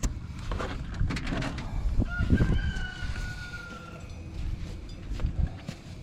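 One long, slightly falling bird call lasting about two seconds, starting about two seconds in, with scattered clicks and knocks around it.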